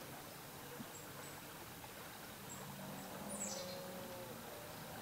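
Faint, quiet woodland ambience, with a short high falling chirp a little over three seconds in and a faint steady tone lasting about a second.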